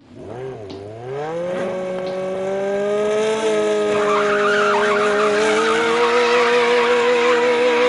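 A motor starting up suddenly, its pitch rising over about a second and a half, then running steadily with a hiss that grows louder.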